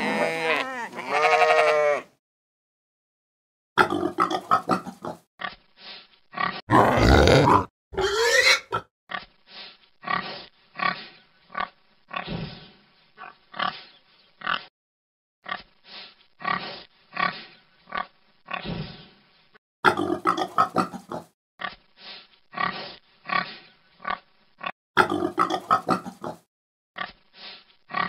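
A sheep bleats briefly, then after a short pause pigs grunt over and over in short, quick grunts, with a couple of louder cries about seven seconds in.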